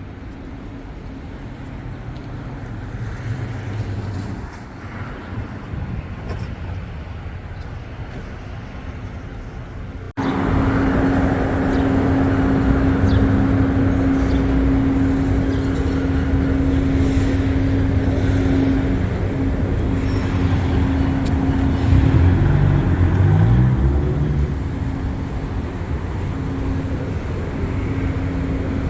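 City street traffic: cars passing and engines running. About ten seconds in the sound cuts abruptly to a louder stretch with a steady engine hum, and a little past the middle a vehicle speeds up with a rising engine note.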